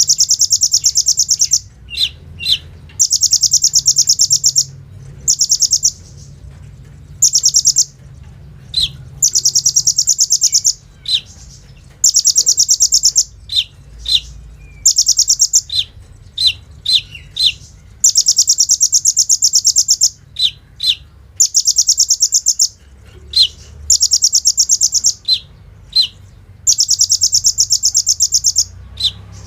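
Kolibri ninja sunbird singing vigorously: a run of high, rapid rattling trills, each lasting about a second, like machine-gun fire, broken by short sharp chips.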